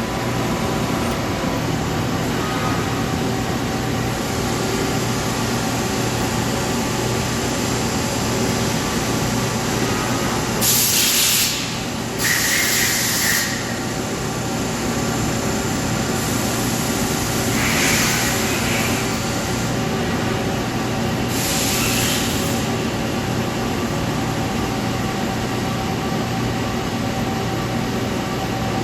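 A Swiss-type CNC lathe running with a steady mechanical hum. Several short bursts of hiss come through, about a third of the way in, twice more in the middle, and about three quarters of the way in.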